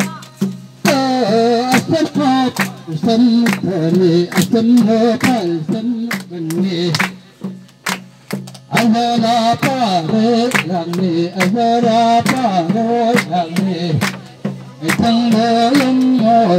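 Music: a singing voice carrying a melody over a steady drum beat, with short breaks in the singing about halfway through and again near the end.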